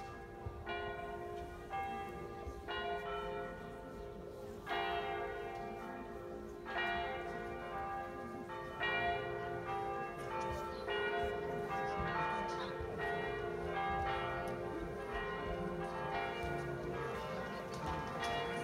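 Church bells of the Collegiata tolling slowly, one stroke about every two seconds, each stroke ringing on over a steady lingering hum.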